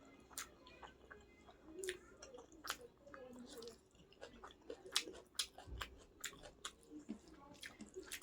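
Close-miked chewing and biting of food, with sharp wet mouth clicks and smacks at irregular intervals.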